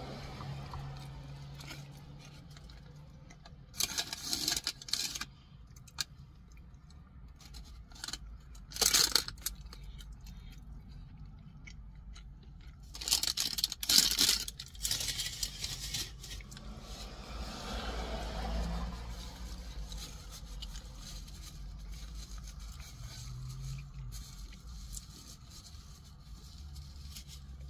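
Paper crinkling and rustling in short bursts, as a fast-food paper bag and paper napkin are handled and crumpled, with three main bouts about four, nine and fourteen seconds in.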